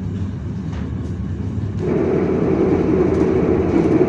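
Passenger train running, heard from inside the coach: a steady rumble of the moving carriage that gets louder and fuller about two seconds in.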